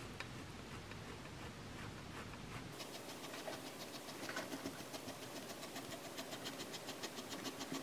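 Chef's knife scoring raw pork belly on a wooden cutting board, the blade tapping the board with each cut: scattered taps at first, then from about a third of the way in a quick, even run of ticks, about five a second.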